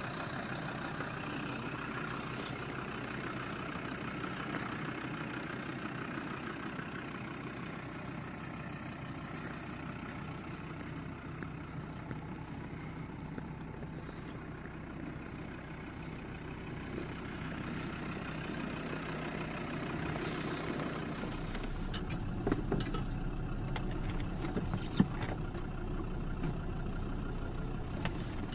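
1999 Land Rover Defender 110's TD5 five-cylinder turbodiesel idling steadily. In the last third the sound grows a little louder and deeper, with a few clicks and one sharp knock about 25 seconds in.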